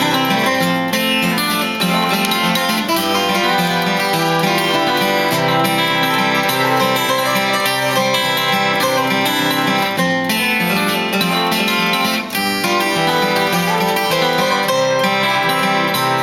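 Acoustic guitar playing an instrumental break in a country gospel tune, with picked and strummed notes and no singing.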